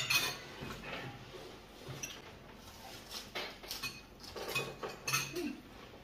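Forks and spoons clinking and scraping on ceramic dinner plates in scattered taps, with a sharper clink right at the start.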